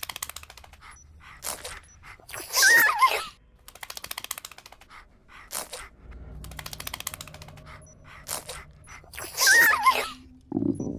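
Men gasping and groaning for breath, with two quick runs of rapid mechanical clicking as chest clamps ratchet tighter.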